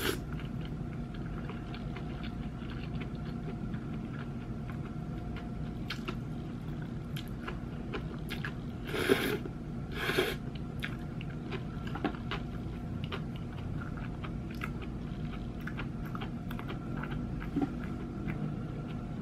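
A person eating cold noodles (bibim naengmyeon): quiet chewing with small wet mouth clicks, and two loud slurps of noodles about nine and ten seconds in.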